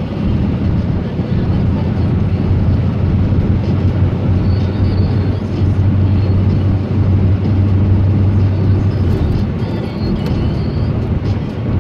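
Steady low drone of a car's engine and tyres heard from inside the cabin while driving on the open road.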